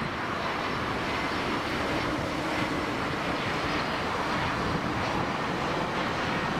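Embraer 170 jet airliner with its twin General Electric CF34-8E turbofans on final approach, gear down: steady jet engine noise with no sudden changes.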